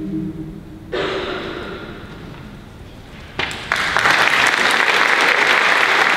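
A choir's held final chord ends and fades in the room's reverberation, then audience applause breaks out about a second in and swells to full, steady clapping about four seconds in.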